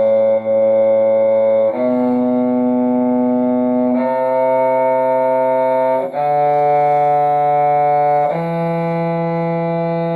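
Bowed string instrument playing a two-octave C major scale in long held notes, three counts each, climbing one step about every two seconds.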